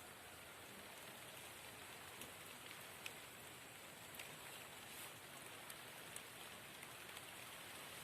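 Rain falling: a faint, steady hiss with scattered ticks of individual drops.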